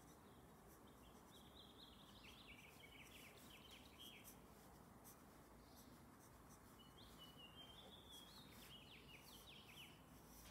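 Faint scratching of a graphite pencil sketching on paper. A bird sings two short twittering phrases, the first about a second in and the second about seven seconds in.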